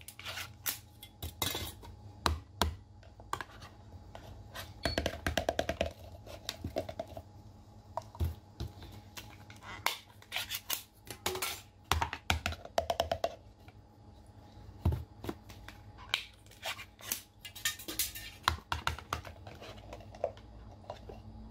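A glass jar with a metal clip-top lid being worked open and its food shaken out onto a plate: an irregular run of sharp clicks, knocks and scrapes of glass and metal.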